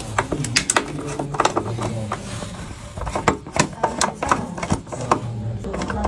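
Screwdriver working the terminal screw of a breaker's neutral wire: irregular small metal clicks and scrapes of the bit in the screw head, as the neutral connection is undone for inspection.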